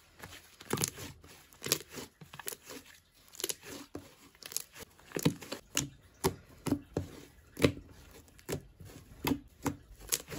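Thick, stiff slime being stretched, folded and pressed by hand, giving a series of sharp sticky pops and crackles, roughly two a second.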